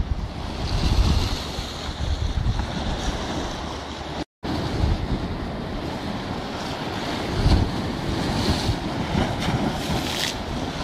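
Jugo wind of 35 to 50 knots buffeting the microphone in strong gusts over the rush of a choppy sea, with waves splashing against a stone breakwater. The sound cuts out for a moment about four seconds in.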